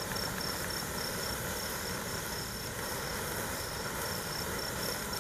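Large golden sparkler burning with a soft, steady fizz and crackle. Crickets chirp in an even, pulsing rhythm.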